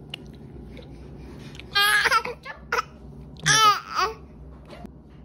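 A baby squealing and babbling happily: two high-pitched squeals, one about two seconds in and a louder one about three and a half seconds in, with a short sound between them.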